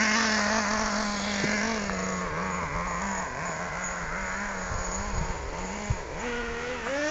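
Traxxas T-Maxx RC monster truck's small nitro engine running with a high buzz, its pitch rising and falling with the throttle. It gets quieter as the truck drives off, then revs up again near the end.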